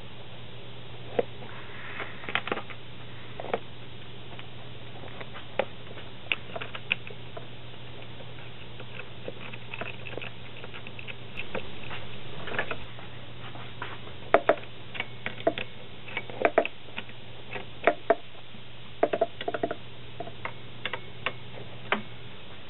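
Pleated plastic lathe-bed bellows being folded and pressed into place by hand: irregular light clicks and crinkles from the plastic pleats, over a steady low hum.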